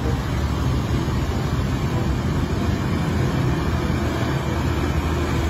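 Heavy loaded dump truck's diesel engine running steadily as it drives through a shallow river, with water rushing around its wheels.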